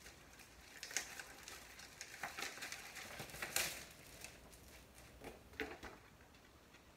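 Thin plastic bag crinkling and paper rustling as a folded instruction manual is pulled out of its clear plastic sleeve and opened out. The crackles are uneven, and the loudest comes about three and a half seconds in.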